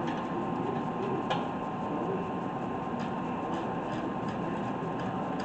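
Steady garage background hum with a faint constant tone, and a few scattered light clicks of tools and brake parts being handled.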